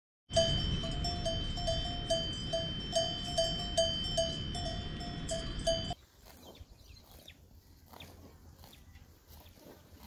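Livestock bells clanking, many short ringing strikes overlapping with a steady high tone behind them. About six seconds in they cut off abruptly, leaving the quieter crunching and tearing of a cow cropping grass.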